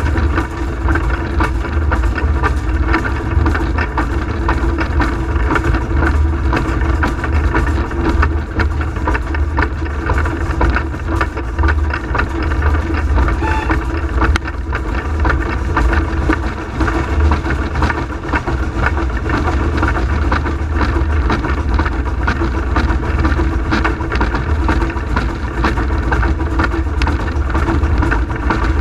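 Peckett & Sons industrial steam tank locomotive running under steam, heard from inside the cab: a steady, loud mix of exhaust, motion and running noise.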